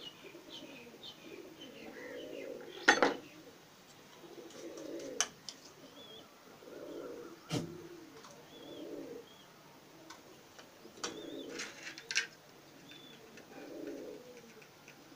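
A dove cooing over and over in low hoots, one every second or two, with a small bird chirping faintly now and then. A few sharp clinks of a metal spoon and knife against plates and a small steel bowl cut in, the loudest about three seconds in.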